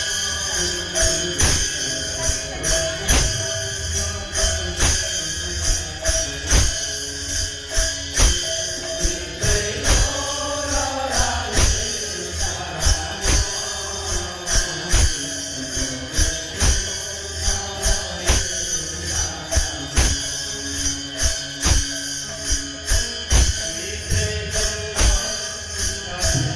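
Kirtan devotional music from an Indian village group: a drum keeps a steady beat of about two strikes a second under continuous jingling metal percussion and held melodic notes. About ten seconds in, a wavering melody line rises above the rest.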